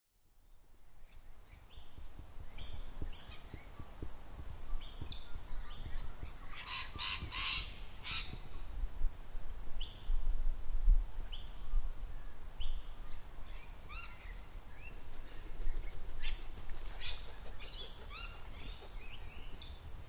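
Birds chirping in short repeated calls, with a louder burst of calls about seven seconds in. Under them a low wind rumble buffets the Zoom H1N recorder's microphones and swells about halfway through. The sound fades in from silence at the start.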